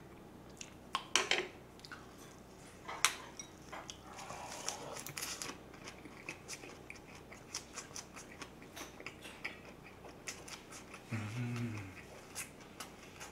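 Close-miked chewing of a big lettuce-and-perilla-leaf wrap of spicy stir-fried pork and rice: wet crunching and mouth clicks scattered throughout, with a short hum through closed lips near the end.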